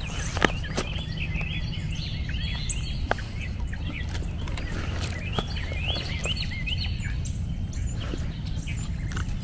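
Small birds chirping, many short rising-and-falling chirps repeating throughout, over a steady low rumble, with a few sharp clicks.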